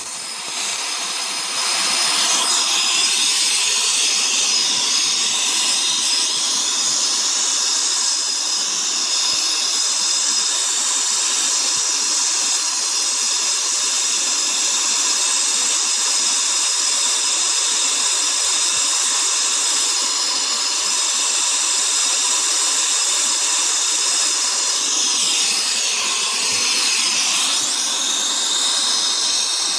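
Brazing torch flame hissing steadily while the copper refrigerant line joints of a newly installed compressor are brazed. Its sound shifts briefly a few seconds before the end.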